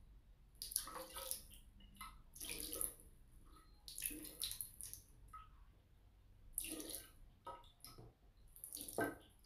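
Water poured slowly from a plastic PET bottle into a glass vase, splashing in about five short gushes a second or two apart.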